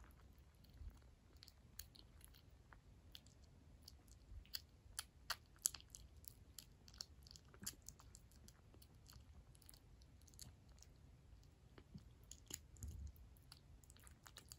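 Kitten chewing and licking wet cat food from a small dish: a faint, irregular run of small wet clicks and smacks, thickest in the middle.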